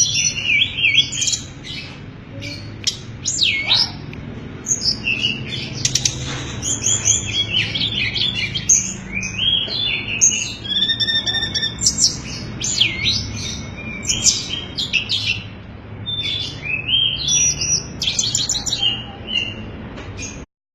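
A tledekan gunung songbird singing without pause: fast runs of high chirps and clear flute-like whistles. A faint low hum sits underneath, and the song stops abruptly just before the end.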